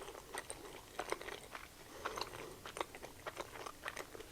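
Close-up chewing of a Korean corn dog: the batter coating crunches faintly, with short wet mouth clicks in an irregular string of chews.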